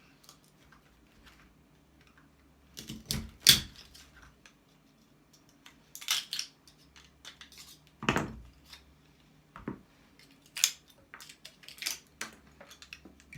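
Hand tools working on metal scrap to free copper: scattered sharp metallic clicks and clinks at irregular intervals, the loudest about three and a half seconds in.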